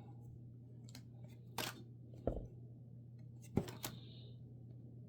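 Faint handling of a trading card pack and cards: a few soft rustles and light taps, over a low steady hum.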